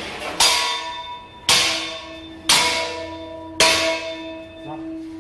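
Metal being struck four times, about once a second, each clang ringing on and fading slowly.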